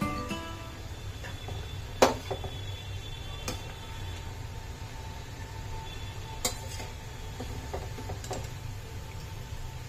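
Batata vadas deep-frying in hot oil with a steady sizzle, while a metal slotted spoon clinks against the steel pan four times, loudest about two seconds in.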